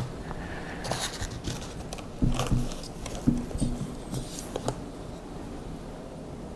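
Small hardware and a plastic bag being handled on a workbench: scattered light clicks, scrapes and crinkles, busiest in the first five seconds.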